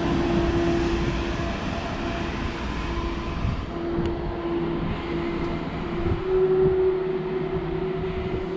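ÖBB Cityjet, a Siemens Desiro ML electric multiple unit, running, with a continuous rumble and a steady electric whine that rises slightly about six seconds in.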